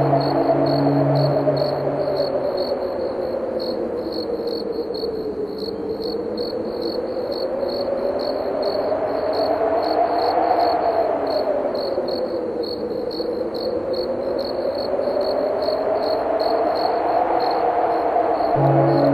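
Crickets chirping in a steady, even rhythm of a couple of high chirps a second, over wind that slowly swells and fades. A low steady hum sounds in the first couple of seconds and again near the end.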